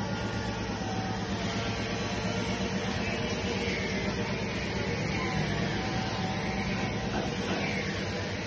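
Air-powered spray gun hissing as it sprays epoxy primer, over the steady drone of the air compressor that feeds it.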